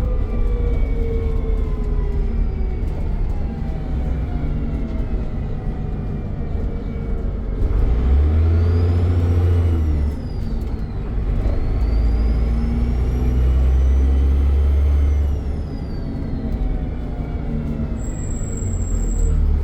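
Dennis Trident double-decker bus engine winding down, then pulling hard twice, with a high turbo whistle rising and falling over the engine each time. A short high beep near the end.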